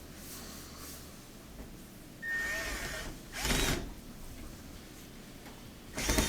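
Screws being driven into a washing machine's front panel with a screwdriver, heard as three short bursts of mechanical whirring and clicking.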